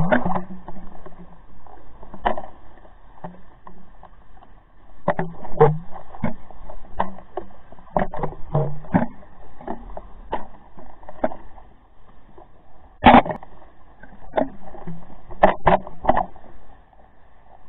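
Underwater recording from a camera rig swinging on its line: irregular muffled knocks and clicks, one sharper knock about two-thirds of the way through and a quick cluster near the end, over a faint low hum.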